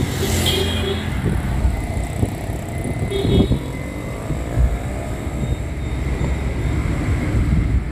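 Moving car's road rumble and wind noise, heard at an open side window. Two brief steady tones sound over it, one right at the start and one about three seconds in.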